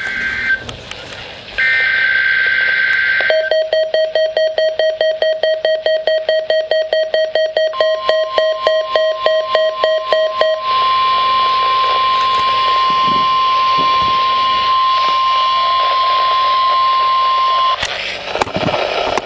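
NOAA Weather Radio alert sequence on a Midland WR-100 weather radio. It opens with the buzzy SAME data bursts of the alert header, which stop briefly and then repeat. About three seconds in, rapid pulsed beeping starts. About eight seconds in, the steady 1050 Hz warning alarm tone begins, signalling the weekly test alert, and it holds for about ten seconds before cutting off near the end.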